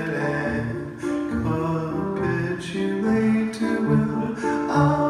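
Grand piano played live, with chords over a moving bass line, and a man singing along.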